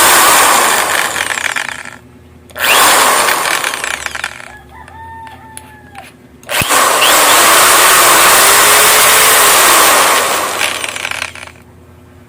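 Bosch corded electric drill test-run in trigger bursts: running at full speed, spinning down about a second and a half in, a short burst around three seconds, then a longer run from about seven to ten seconds that winds down near the end, with the motor's whine gliding in pitch as it slows.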